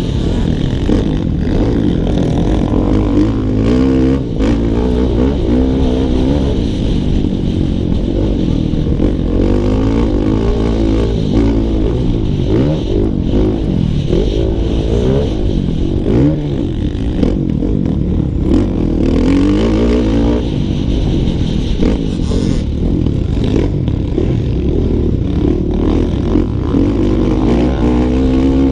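Motocross bike engine heard from on board, revving hard and easing off over and over, its pitch climbing and falling with throttle and gear changes.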